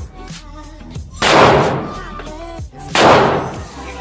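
Two shots from a Canik TP9SF 9mm pistol, a little under two seconds apart, each echoing and dying away in an indoor range. Background music runs underneath.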